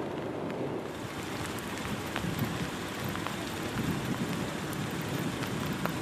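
Thunderstorm rain: a steady hiss of falling rain with scattered ticks of drops striking, over a low rumble.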